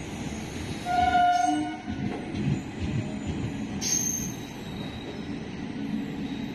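Indian Railways passenger coaches running through a station at speed, a steady rumble and rattle of wheels on the rails. A short horn blast sounds about a second in, and a high wheel squeal starts suddenly about four seconds in.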